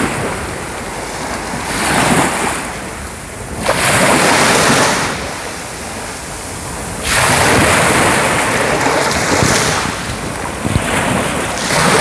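Small waves breaking and washing up a sandy shore of the Sea of Azov, the surf swelling and easing in surges every couple of seconds, with wind buffeting the microphone.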